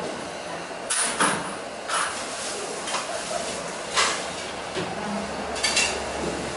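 Restaurant kitchen clatter of bowls and utensils: a handful of sharp knocks and clinks, roughly a second apart, over a steady background din of the busy shop. A low hum comes in about five seconds in.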